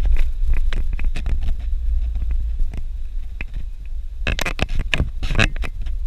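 Suzuki Jimny driving over a rough dirt road: a steady low rumble with frequent knocks and rattles, a dense cluster of them about four to five seconds in.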